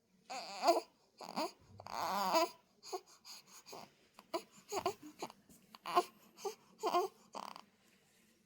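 Young baby fussing: a string of about a dozen short, high-pitched cries and squeaks with brief gaps between them.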